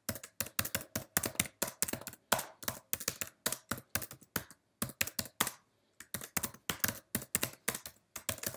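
Typing on a computer keyboard: a rapid run of key clicks, with a couple of short pauses about two-thirds of the way through and near the end.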